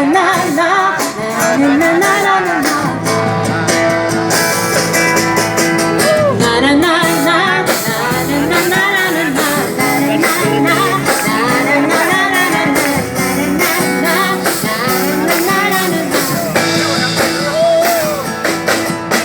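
Live guitar accompaniment with a singer imitating a cuíca with her voice: repeated wordless swoops that rise and fall in pitch, like the friction drum's squeaky groan, over the strummed chords.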